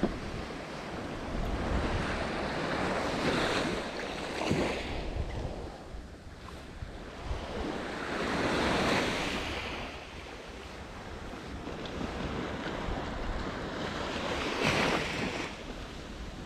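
Small waves breaking and washing up a sandy beach, swelling louder three times about five seconds apart, with wind rumbling on the microphone underneath.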